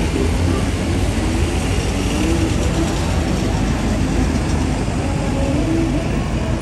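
Busy city street ambience: a steady low rumble of traffic mixed with crowd noise.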